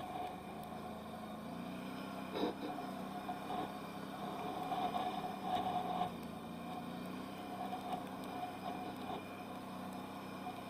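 Can-Am Outlander 1000R XMR ATV's V-twin engine running at a fairly steady pitch while riding off-road, with a brief knock about two and a half seconds in.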